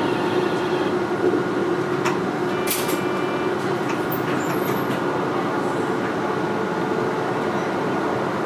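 Man'yōsen MLRV1000 low-floor tram standing at a stop, heard from inside the car: a steady hum from its onboard equipment. A short high-pitched sound comes about three seconds in.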